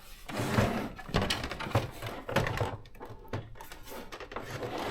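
Scattered knocks and scrapes of an electronic typewriter's plastic body being handled, several sharper knocks in the first couple of seconds, then quieter rubbing.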